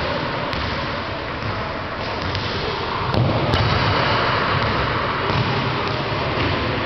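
Footballs kicked and bouncing on a sports hall floor, a few sharp knocks over a steady echoing hall din.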